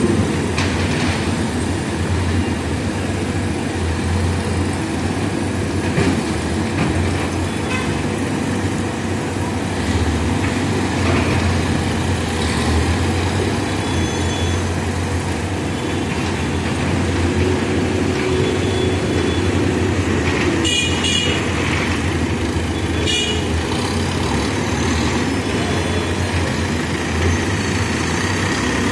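Diesel engine of a Manitou backhoe loader running steadily as the machine moves. Vehicle horns toot a few times in the second half.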